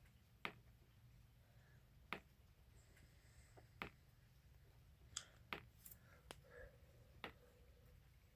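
Near silence broken by about seven sharp, irregularly spaced clicks over a faint low rumble.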